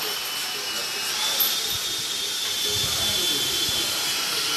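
Small electric power tool, such as a drill, running steadily with a high whine and hiss. The whine steps up in pitch about a second in.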